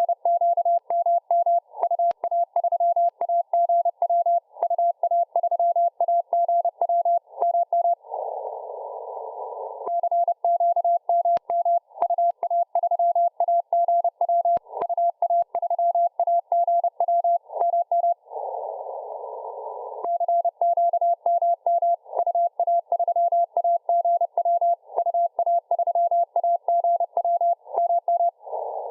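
Morse code (CW) signal heard through a radio receiver: a single steady tone keyed on and off in quick dots and dashes. It pauses twice, about eight and about eighteen seconds in, leaving only narrow-filtered band hiss, with faint static clicks throughout.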